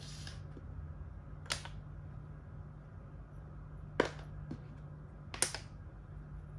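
Plastic makruk (Thai chess) pieces clacking as they are moved and set down on the board: four sharp clacks several seconds apart, the last one doubled.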